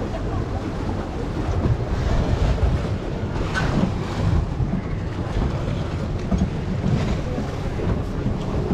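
A passenger boat's motor running as the boat moves off, with water churning beside the hull and wind buffeting the microphone in a steady low rumble.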